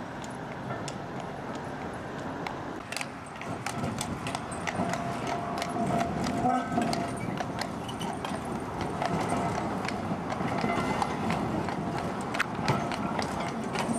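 Hooves of a draught horse clip-clopping on the road as it hauls a horse tram: irregular sharp knocks over steady street noise.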